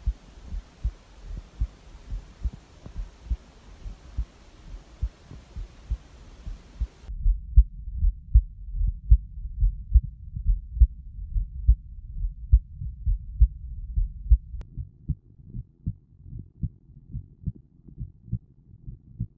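Recorded heartbeat with a steady run of lub-dub thumps. At first it plays with a steady hiss behind it. About seven seconds in the hiss cuts out and only the low, muffled thumps remain, as if the recording has been filtered to clean it up. About fourteen and a half seconds in the thumps turn slightly brighter.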